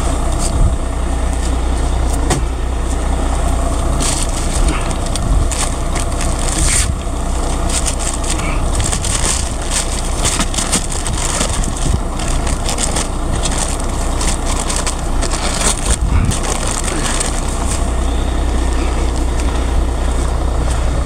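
A heavy truck's diesel engine running steadily, as at a concrete pour, with many short hissing noises over it.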